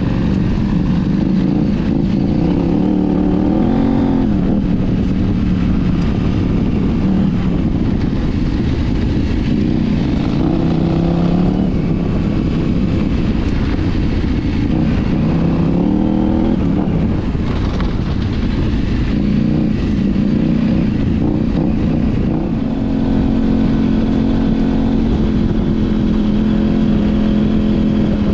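KTM 790 Adventure R's 799 cc parallel-twin engine under way on a dirt trail, its pitch rising and falling over and over as the throttle opens and closes and the gears change, then holding steady near the end. It runs through an aftermarket Arrow slip-on exhaust and de-cat mid-pipe, under a constant rush of wind and tyre noise.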